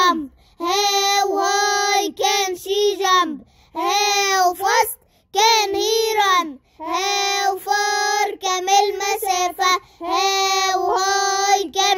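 A child singing a simple teaching song in short phrases, with brief pauses between them.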